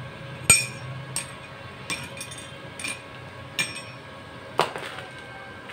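Six sharp metal-on-metal taps with a brief ring, about one every second and irregular: a hand tool striking the freshly welded steel pieces. The first and last taps are the loudest.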